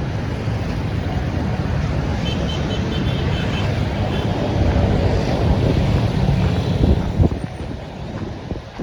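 Wind buffeting the microphone with a heavy, fluctuating rumble, over street traffic noise. A faint, brief high beeping sounds about two to three seconds in.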